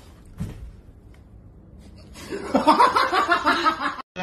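A single thump about half a second in, then a person laughing loudly in short, choppy bursts from about two seconds in until the sound cuts off.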